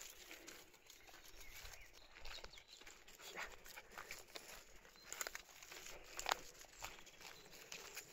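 Quiet footsteps rustling and crackling through dry fallen leaves, with a sharper crackle about six seconds in.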